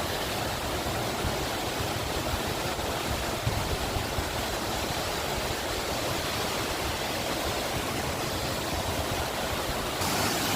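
Waterfall rushing steadily, a dense even roar of falling water that grows a little louder and brighter near the end.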